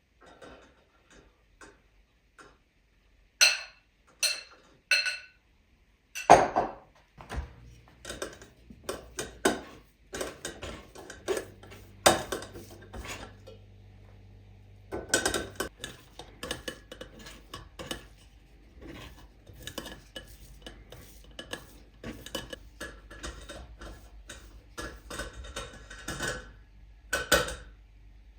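Kitchen work: dishes and utensils clinking and knocking, with three sharp ringing clinks a few seconds in and a steady low hum from a little later on.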